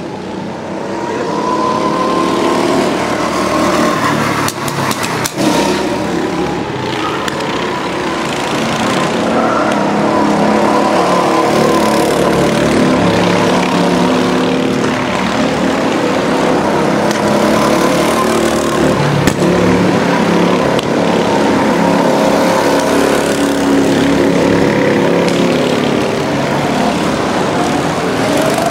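Several go-kart engines running at once, their pitches rising and falling as the karts accelerate and slow around the circuit; the sound grows louder over the first couple of seconds.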